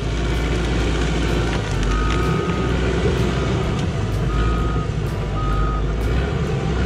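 Crawler bulldozer's diesel engine running steadily under load as it pushes against a large evergreen tree, with its backup alarm beeping three times, about two, four and five seconds in.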